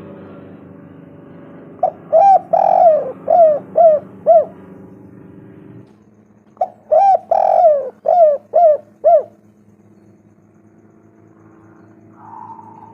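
Spotted dove (tekukur) cooing: two song phrases of about six coos each, a few seconds apart, over a faint steady low hum.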